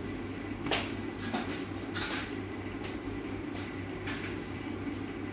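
Soft pats and drips as a water-soaked bread slice is pressed between wet palms over a plastic bowl, water falling back into the bowl, over a steady low hum.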